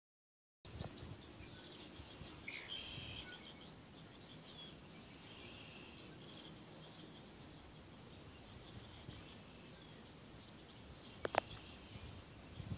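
Faint outdoor ambience with birds chirping, many short chirps and trills. A single sharp click sounds about eleven seconds in.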